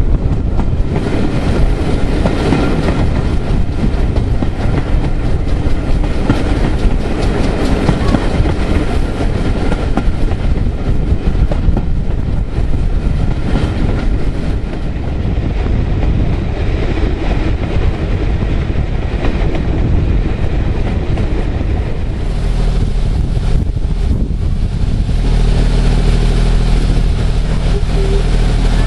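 Passenger coaches of a steam-hauled heritage train running along the track, wheels rumbling and clattering over the rail joints. About three-quarters of the way through a steady low hum joins in.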